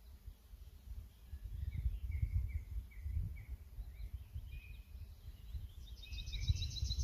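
Birds singing: a run of about six short chirps in the middle, then a fast, high trill near the end. Underneath, a low rumbling noise, louder than the birdsong.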